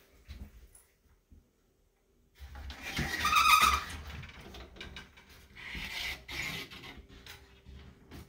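A loud scraping rub with a short squeak about three seconds in, then a second, weaker rub around six seconds in, over soft footsteps.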